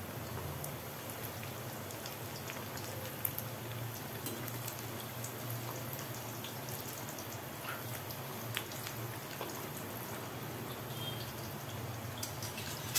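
Bitter gourds deep-frying in hot oil in a kadhai: a steady crackling sizzle, with a couple of sharper ticks.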